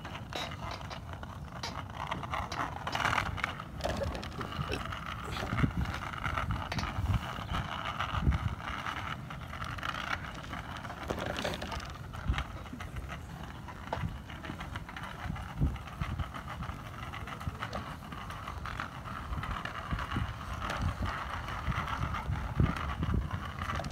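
Steady rolling and rattling noise of a bicycle ride, with wind buffeting the microphone and small irregular knocks.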